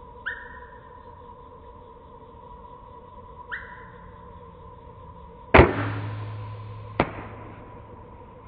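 A bow shot about five and a half seconds in: a loud sharp crack as the string is released, with a low humming ring fading over a second or two, then a second, shorter crack about a second and a half later.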